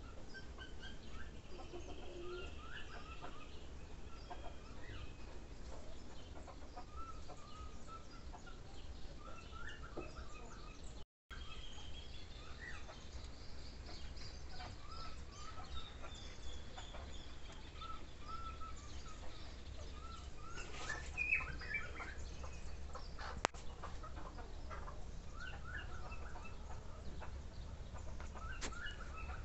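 Chickens clucking now and then, short scattered calls over a steady low hum.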